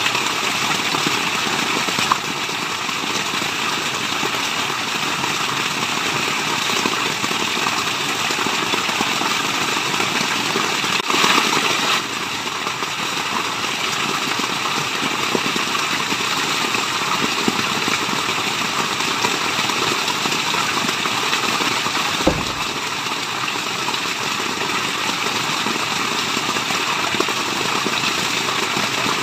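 Waterfall: steady rushing water with no letup, briefly a little louder about eleven seconds in.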